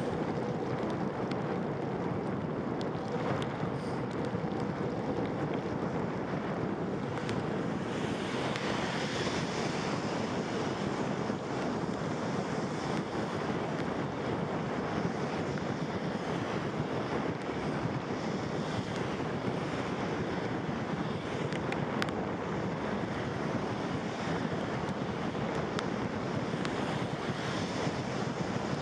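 Steady rushing wind noise buffeting the microphone while riding a bicycle in the rain, mixed with the hiss of rain and wet road. A faint steady hum sits under it for the first several seconds.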